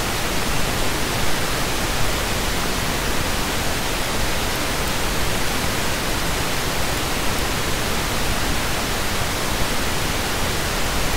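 Steady hiss of recording noise from the microphone, spread evenly from low to high pitches, with no other sound.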